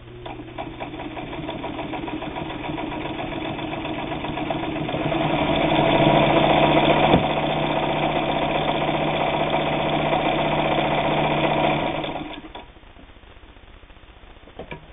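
Singer 66 all-steel, gear-driven sewing machine stitching through two layers of heavy denim: it speeds up over the first few seconds, runs steadily at its fastest in the middle, then stops about twelve and a half seconds in. A single sharp click sounds about seven seconds in.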